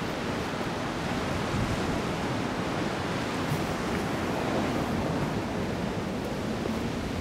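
Steady wash of surf on a rocky shore mixed with wind, an even rushing noise without breaks.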